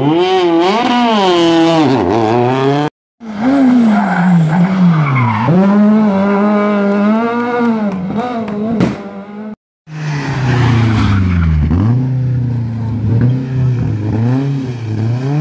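Rally car engines revving hard, their pitch climbing and dropping again and again through tight hairpin bends, with tyres skidding. Three separate passes follow one another, each breaking off suddenly, about three seconds and ten seconds in.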